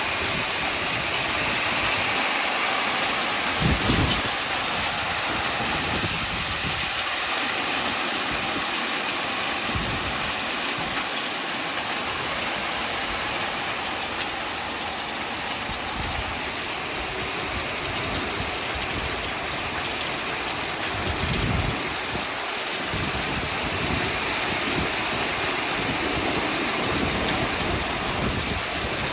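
Heavy rain mixed with hail pouring down in a steady, dense hiss during a thunderstorm, with a few brief low rumbles of wind gusting across the microphone.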